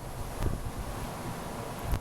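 Strong wind blowing across the microphone, buffeting it in low rumbles, with two heavier gusts about half a second in and near the end.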